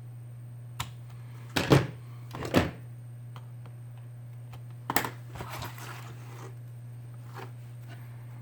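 Scattered light clicks and taps of small repair tools and adhesive tape strips being handled on a workbench, the loudest a pair about two seconds in and another near five seconds, over a steady low hum.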